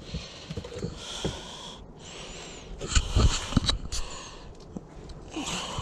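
A person breathing and sniffing close to the microphone: several short, noisy breaths, with a few faint low knocks of handling.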